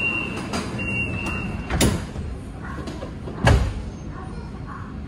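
BTS Skytrain door-closing warning: a high steady beep, then two heavy thuds about a second and a half apart as the sliding doors shut. A steady carriage hum follows.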